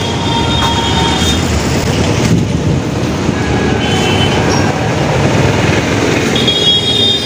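Loud, steady street noise of heavy rain and passing traffic, with a couple of brief high-pitched squeals near the start and near the end.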